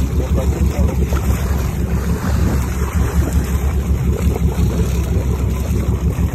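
Steady low rumble of a fishing charter boat's engine, with wind on the microphone.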